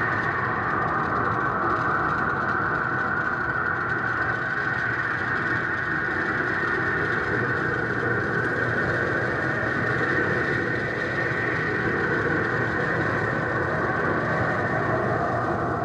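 A steady, unbroken mechanical rumble that holds an even level throughout.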